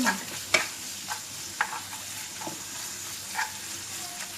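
Chicken, egg and vegetables sizzling in hot oil in a pan, with a steady hiss, while a spatula stirs them and knocks against the pan about six times.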